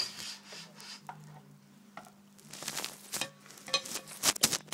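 Rustling, scraping and knocking handling noise from the recording phone being moved about, in short irregular bursts that grow busier and louder near the end.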